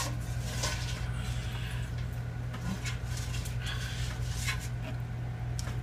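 Scattered rustling and light knocks of handling over a steady low hum.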